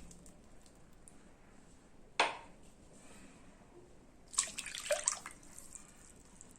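A single sharp knock of a kitchen container or utensil about two seconds in, then a short splashing pour of liquid into a mixing bowl about halfway through.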